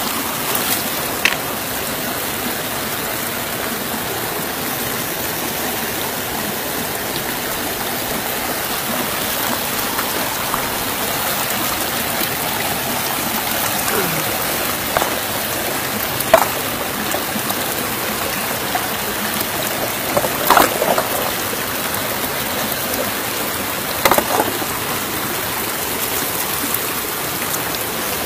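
Shallow river water running over rocks, a steady rushing. A handful of brief sharp sounds from a hand moving stones in the water break through it, the loudest about sixteen and twenty seconds in.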